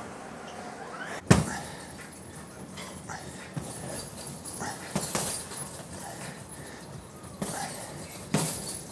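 Knocks and light clatter: a sharp knock about a second in is the loudest, with softer knocks near the middle and near the end.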